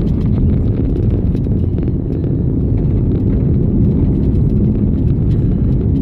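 Vehicle driving down an unpaved hill road, heard from inside the cabin: a steady low rumble of tyres and engine with many small clicks and rattles.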